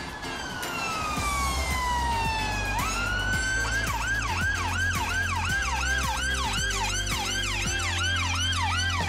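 Emergency vehicle siren. A long wail falls in pitch for about three seconds, then the siren jumps up and switches to a fast yelp of about three sweeps a second. Low, steady bass tones sound underneath.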